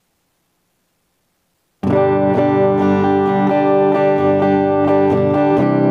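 Silence, then about two seconds in a JCraft LT1 Classic Telecaster-style electric guitar starts playing clean picked chords and notes on its neck pickup, with the tone control fully open.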